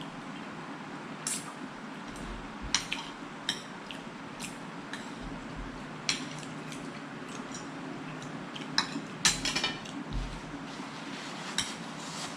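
Spoons and forks clinking and scraping on dinner plates while eating, in irregular single clicks with a quick run of clinks a little past the middle, over a low steady hum.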